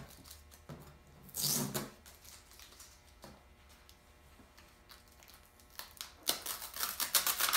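Paper crinkling and crackling as the decal's backing paper is handled and peeled away from the vinyl: a short rustle about a second and a half in, then a run of crackling near the end.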